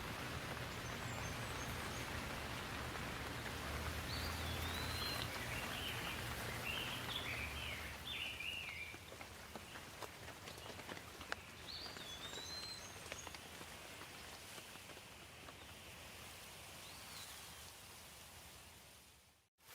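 Steady rain falling, with birds chirping over it in a few short runs and a low hum in the first half; the sound cuts out abruptly for a moment near the end.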